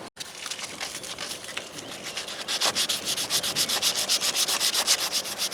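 Sandpaper rubbed by hand in quick back-and-forth strokes, cleaning a chafed, rubbed-through spot before it is sealed with silicone. The strokes get louder about two and a half seconds in.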